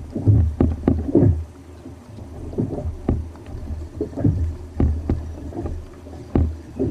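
Choppy sea water slapping against a fishing kayak's hull in a run of irregular knocks and splashes, several a second in bunches.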